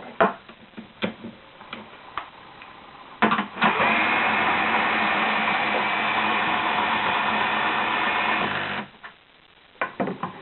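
A few knocks and clicks, then a power drill runs steadily for about five seconds, turning the router lift's 16-threads-per-inch lead screw to lower the router, and stops.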